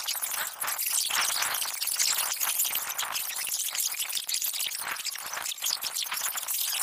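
A steady, crackling hiss like static, thick with small clicks and with no low tones; no voices or game sounds stand out from it.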